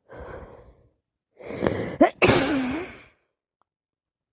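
A woman with a head cold sneezes: a breath in, a rising gasping inhale, then about two seconds in a loud explosive sneeze with a voiced tail.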